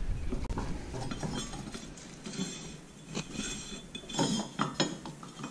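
Ferris IS1000 mower deck spindle pulley and V-belt turned by hand, with a low scraping and a few short metallic clinks and rattles from the pulley and spindle.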